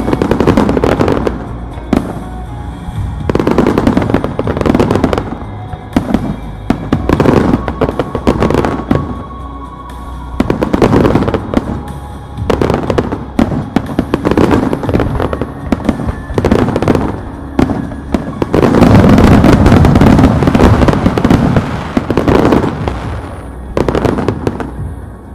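Fireworks display: shells bursting in repeated volleys of bangs and crackle, building to a dense continuous barrage about three-quarters of the way through, with music playing underneath.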